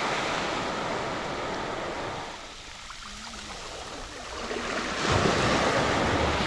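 Small waves washing up onto a shelly sand beach and drawing back. The wash eases about two and a half seconds in and swells again with a new wave at about five seconds.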